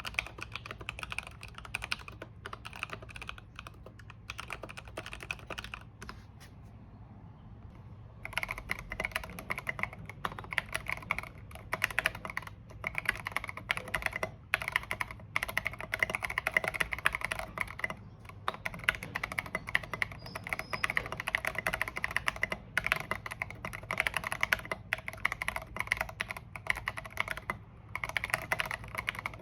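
Anne Pro 2 mechanical keyboard being typed on, a fast, continuous run of keystroke clacks with a short pause about six seconds in.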